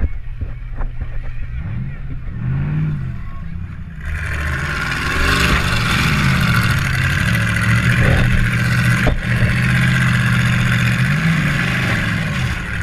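Demolition derby car's engine revving up and down. From about four seconds in a loud rushing noise joins it, and there is a single sharp knock about nine seconds in.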